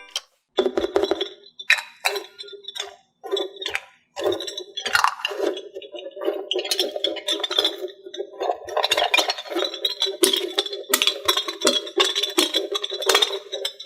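Irregular, rapid clinking and tapping of small hard objects against one another, with short pauses about three and four seconds in.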